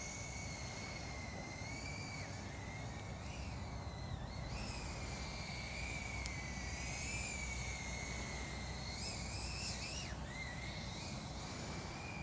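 FPV quadcopter's motors whining as it flies, one high tone that wavers up and down with the throttle, with quick dips and rises around four seconds in and near ten seconds.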